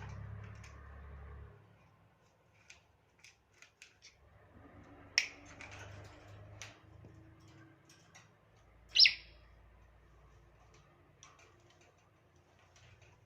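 African grey parrot giving short, shrill squawks, the loudest about five and nine seconds in, with faint clicks in between.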